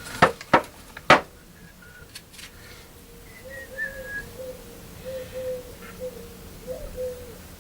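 Three sharp knocks in the first second or so, then a man faintly whistling a slow tune to himself.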